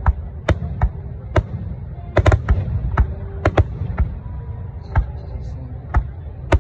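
Aerial firework shells bursting: about a dozen sharp booms at uneven spacing, some in quick pairs, over a steady low rumble.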